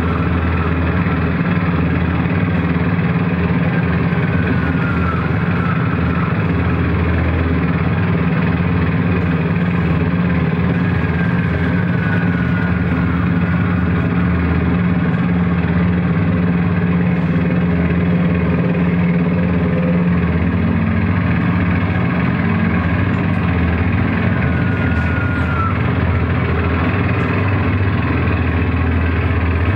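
Ambient drone music from a looped, effects-processed electric guitar: a dense, steady wash of sustained tones, heaviest in the low range, with a high tone that slides down briefly every several seconds.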